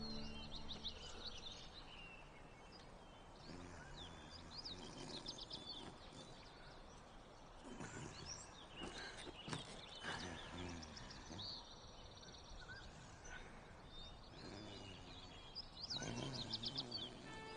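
Faint birdsong: small birds giving clusters of quick, high chirps several times over a quiet outdoor background.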